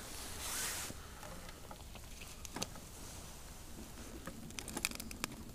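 Quiet handling noises: a brief rustle near the start, then scattered light clicks and taps, a single one midway and several close together near the end.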